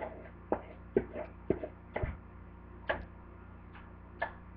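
Irregular light taps and clicks, about seven in four seconds, as a mixing bowl is tipped over a jar and the thick oatmeal-and-honey mixture is worked out of it into the jar.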